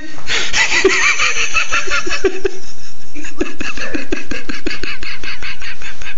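Loud, hearty laughter in rapid choppy bursts.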